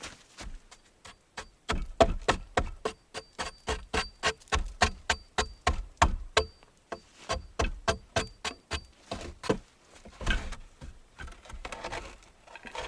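A quick, even series of sharp knocks, about three a second, many with a brief high metallic ring. They stop about three seconds before the end, and a few softer knocks follow.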